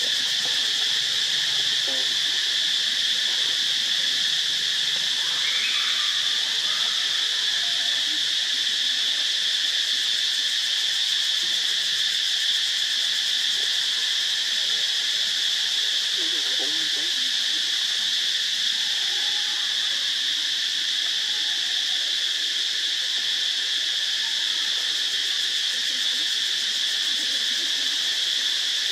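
Steady chorus of insects: a continuous high-pitched drone that holds an even level without a break.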